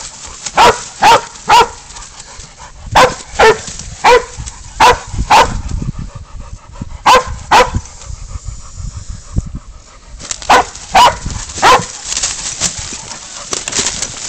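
Pig-hunting dog baying at a cornered feral goat: short, loud barks in runs of two to five, about two a second, with a pause of a few seconds midway. The barking holds the goat at bay until the catch.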